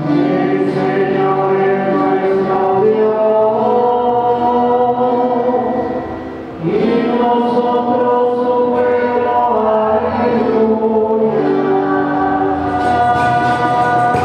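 Church singing: voices singing a slow hymn in long, sustained phrases, with a brief break about six and a half seconds in. It is sung music of the Mass between the second reading and the Gospel.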